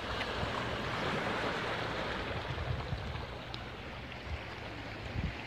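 Small waves washing onto a rocky, pebbly shore: a steady rush of surf that swells in the first couple of seconds, with low wind rumble on the microphone underneath.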